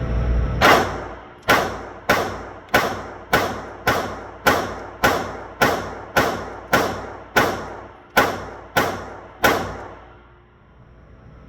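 A string of about fifteen gunshots at a steady pace of under two a second, each with a short ringing tail, stopping about two seconds before the end.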